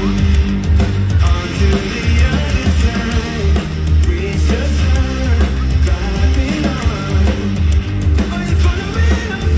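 Live rock band with distorted electric guitars, bass and drums playing loud and full, with a heavy, pulsing beat in the low end. It is an instrumental stretch between sung lines.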